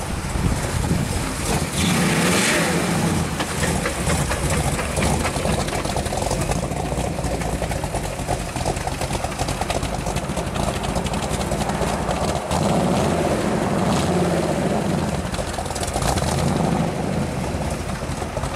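The engine of a 1969 Chevrolet Camaro running through its exhaust as the car rolls by at low speed. The revs climb and fall about two seconds in, and again a few times near the end.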